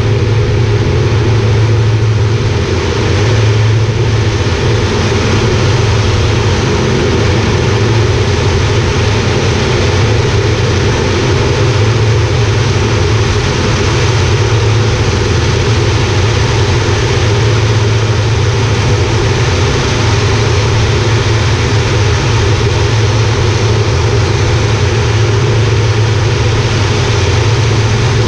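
Air Tractor 402B's Pratt & Whitney PT6A turboprop engine and propeller running at takeoff power, heard inside the cockpit as a loud steady drone with a strong low hum. The aircraft is heavily loaded, and the sound holds steady through the end of the takeoff roll, the lift-off and the climb-out.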